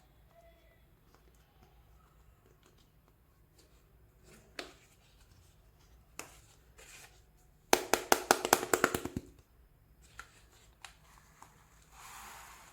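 Hands handling small plastic toy kitchen pieces: scattered light taps and clicks, then a rapid run of about a dozen sharp plastic clicks lasting about a second and a half, and a short soft rustle near the end.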